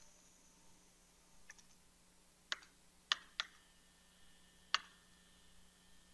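Computer mouse clicks as buttons on an on-screen calculator are pressed: a handful of short, sharp clicks at uneven intervals, two of them close together about three seconds in.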